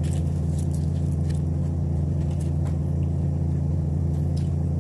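A steady low hum, even in level throughout, with a few faint clicks of chopsticks and eating over it.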